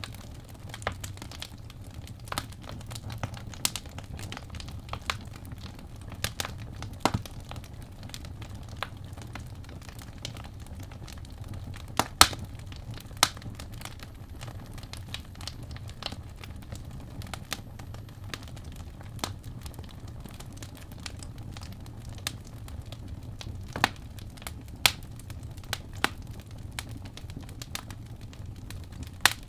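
Wood fire in a fireplace crackling: irregular sharp pops and snaps over a low, steady rumble, with a few louder pops about halfway through and again later.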